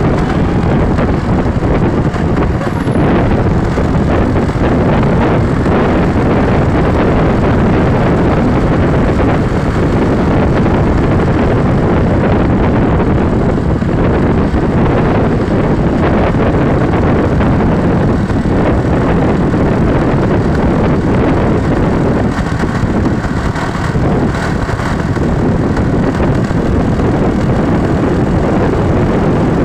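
Tour bus running on the road: a steady, loud rumble of engine and road noise, with no horn sounding.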